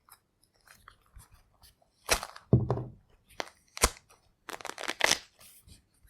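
An orange being peeled by hand: sharp snaps and short rips as the peel is pulled away from the fruit, with small crackles between. The loudest are a crack followed by a longer, lower tear about two seconds in, another sharp snap near four seconds, and a stretch of tearing about five seconds in.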